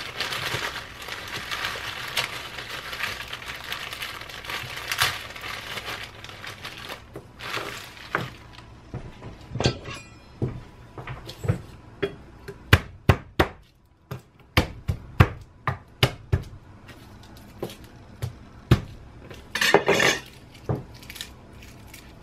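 Crinkling of a plastic food-prep glove and plastic bag, then a long run of sharp clicks and knocks on the kitchen countertop as garlic cloves are broken off the bulb and handled with a kitchen knife.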